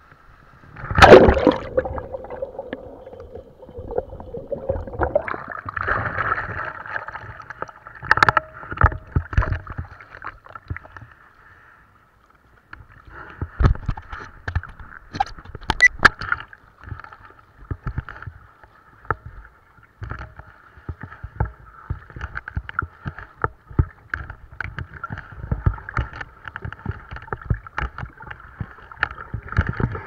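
Sea water splashing and sloshing against a body-mounted action camera during kitesurfing, with a loud crash of water about a second in. The sound drops almost to nothing for about a second near the middle, then the choppy splashing resumes.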